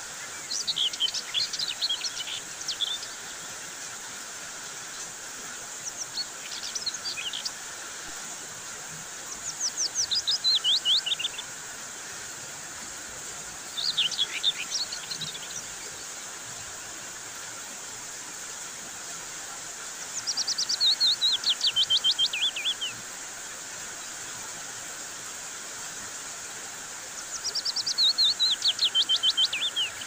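Steady hiss of heavy rain falling on a mango tree. Over it, a songbird sings six times, each phrase a quick run of notes falling in pitch and lasting two to three seconds.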